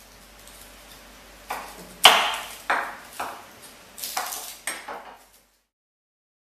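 Kitchen knife cutting an onion and knocking on a wooden cutting board, about six sharp knocks each with a short ring-out, stopping suddenly about five seconds in.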